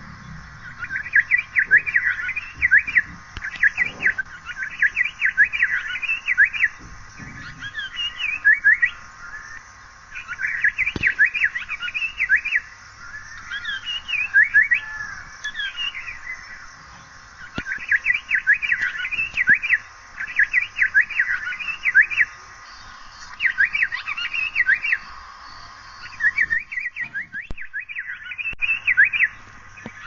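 Asian paradise flycatcher calling: runs of quick, high chirping notes, each run lasting a second or two, repeated again and again with short pauses between.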